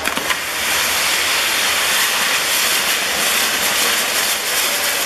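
Ground-firework gerbs (fountain jets) burning with a loud, steady hiss and scattered crackles, the driving jets of a Maltese ground-firework wheel.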